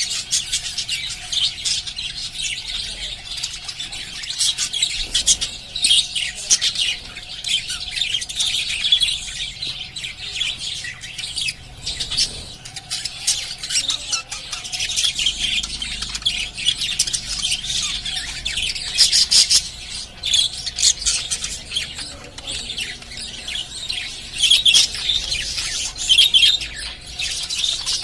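A group of small pet parrots chirping nonstop in quick, overlapping high calls, louder in several bursts.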